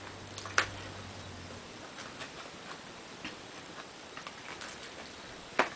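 Scattered light clicks and taps of a small candy box being handled and pried open, with two sharper clicks, about half a second in and near the end.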